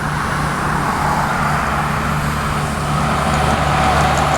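An 18-wheeler semi-truck passing close by: a steady low engine drone under rushing tyre and road noise that swells as it approaches. It goes by without honking.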